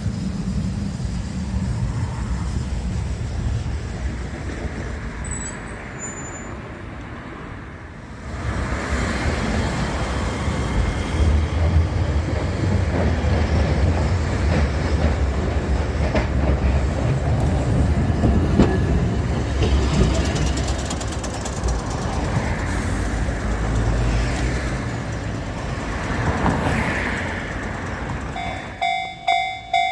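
A train runs past: a rumble swells about eight seconds in and holds loud for some twenty seconds. Near the end a level-crossing warning bell starts ringing in a fast, even beat.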